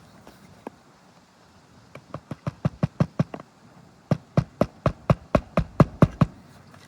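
Hammer driving roofing nails into a replacement 3-tab asphalt shingle: two runs of quick blows, about four a second, with a short pause between them.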